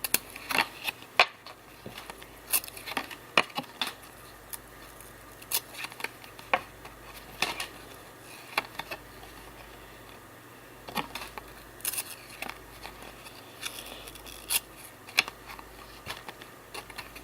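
Trading cards from a 1992 Classic basketball pack being flipped through by hand: irregular crisp snaps and short slides of card stock, a few to a couple each second.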